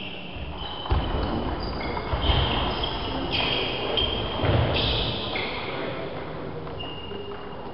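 Table tennis rally in a large gymnasium hall: sharp ball hits and low footfall thuds, with short high-pitched squeaks throughout.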